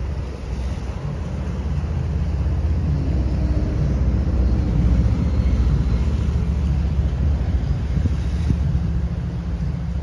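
Wind buffeting the microphone in a low rumble over small ocean waves washing against the boulders of a sea wall. The rumble swells to its loudest about halfway through, then eases slightly.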